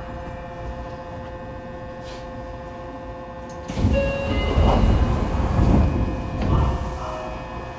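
Yokohama Municipal Subway 3000A train with Mitsubishi GTO-VVVF drive: a steady hum of several held tones. Just under four seconds in, a sudden loud rumble with a hiss starts and eases off after about three seconds.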